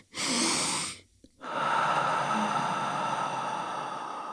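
A woman demonstrating a double inhale through the nose. The quick second inhale tops up her lungs in the first second, and after a short pause comes a long, slowly fading sigh out through the mouth. This is the double-inhale-and-sigh breathing technique for relieving stress.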